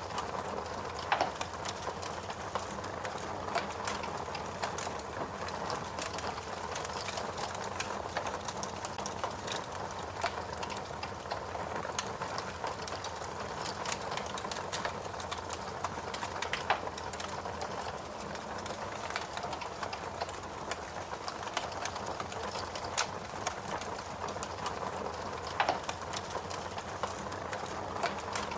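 Fire crackling: a steady hiss thick with small quick pops, with a louder snap every few seconds.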